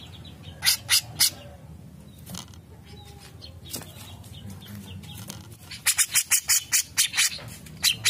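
Grey-cheeked bulbul (cucak jenggot) giving three sharp, harsh calls about a second in, then a fast run of loud harsh chattering calls, about six a second, from about six seconds in.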